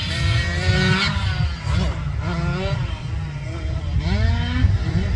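Small 50cc two-stroke mini motocross bikes (Cobra 50) revving on the track, several engines at once, their pitch repeatedly rising and falling as they accelerate and back off. There are sharp rising revs about two seconds in and again near the end, over a heavy low rumble.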